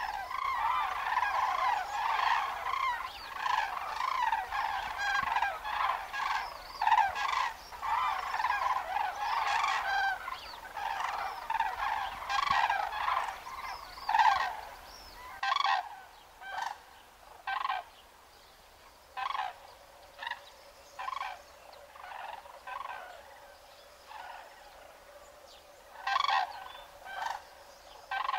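Common cranes (Grus grus) calling in a flock: many loud calls overlap at first, then after about fifteen seconds they thin out into fewer, separate calls with pauses between them.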